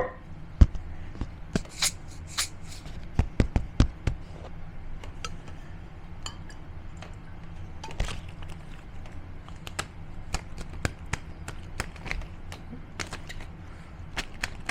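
Household items such as a shaker, a cup and a rubber band handled to mimic a cartoon's sound effects: an irregular run of sharp taps, clicks and knocks, with a quick cluster of louder knocks about three to four seconds in.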